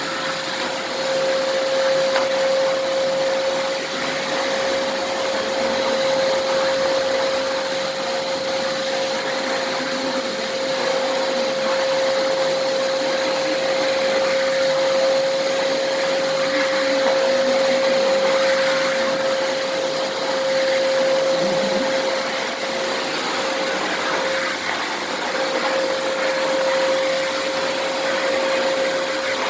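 American Micronic 21-litre 1600 W wet & dry vacuum cleaner running steadily while cleaning flour off a carpet: a steady whine over the rush of air.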